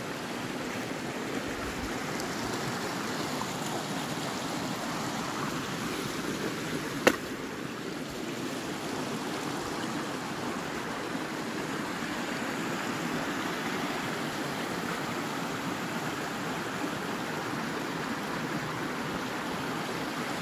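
Steady rushing of a small woodland stream flowing, with one sharp click about seven seconds in.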